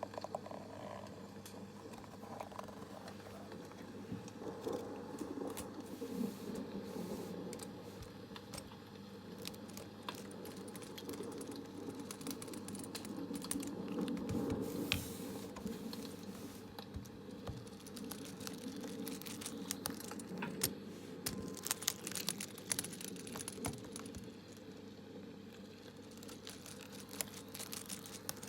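Close-miked ASMR tapping and clicking on small hard objects: many quick, light clicks, denser in the second half, over a steady low background noise.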